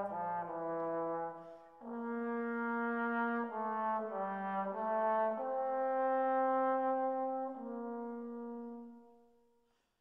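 Background music: a slow melody of long held notes, fading out over the last couple of seconds.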